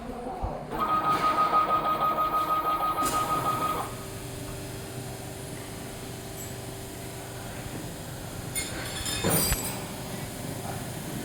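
Spice powder auger filling machine dispensing a dose: its motor runs for about three seconds with a steady high whine and a rapid pulsing, then stops. The machine keeps up a quieter steady hum afterwards, and there is a short clink of a container near the end.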